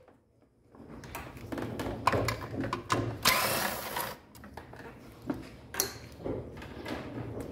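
Hand tools working the bolts of a Dodge Stratus intake plenum: a stretch of rapid clicking and metal clatter starting about a second in, with a few sharp metallic clinks near the end.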